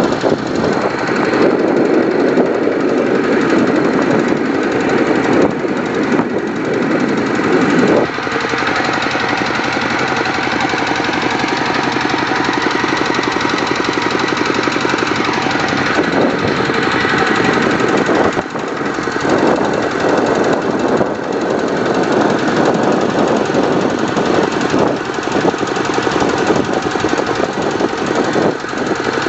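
Two-wheel walking tractor's engine running steadily while towing a trailer along a road; its note shifts slightly about eight seconds in.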